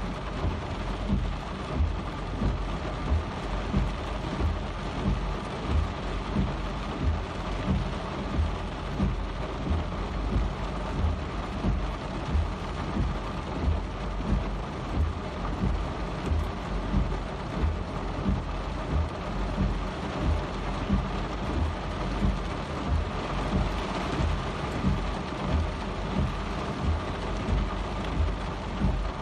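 Steady rain, with a low thud that repeats regularly, a little faster than once a second.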